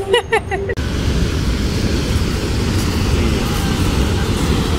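Steady rushing roar of a river pouring over a low dam, starting abruptly just under a second in.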